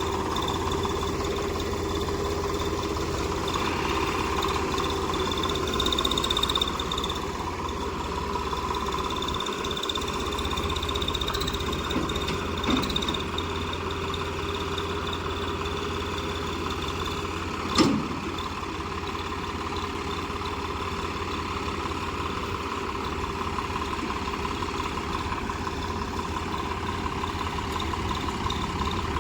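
Tractor diesel engine running steadily at a constant pitch, with a couple of sharp knocks partway through.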